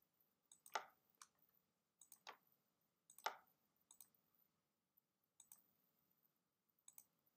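Faint clicks of a computer mouse button, several separate clicks spread about a second apart, each one placing a new anchor point of a pen-tool path.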